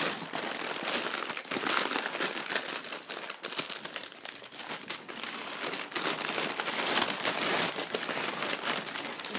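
Packing paper being crumpled and pulled out of a cardboard shipping box by hand: a busy, irregular crackling and rustling throughout.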